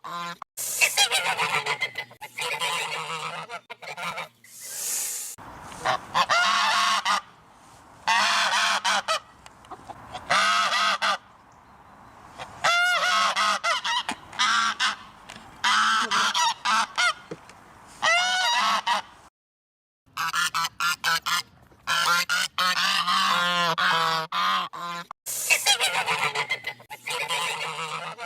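Geese honking, with loud harsh calls coming in repeated clusters and short pauses between them. The sound cuts out completely for under a second about two-thirds of the way through, then the honking resumes.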